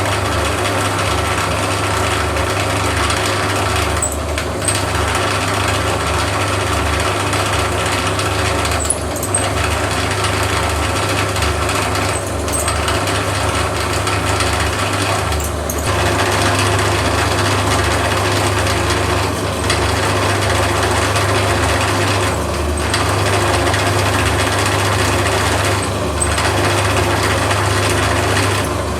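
CNC milling cutter machining aluminium: a steady, loud cutting noise over the hum of the spindle motor. The cutting sound drops out briefly about every three to four seconds.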